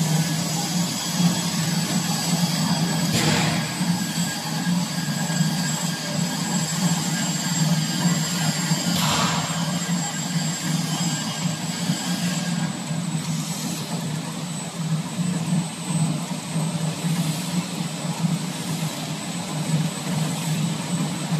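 Tube chain conveyor running: its drive and the disc chain moving through the steel tubes and around the corner wheels make a steady mechanical hum with a thin high whine, with brief clanks about three and nine seconds in.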